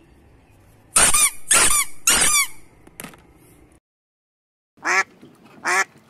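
Rubber duck squeeze toys squeaked three times in quick succession, then, after a short gap, a mallard duck quacking twice.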